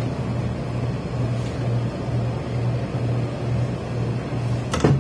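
A hose-fed industrial steam iron presses fabric on a pressing table, over a low machine hum that pulses on and off about twice a second. A brief sharp sound comes near the end.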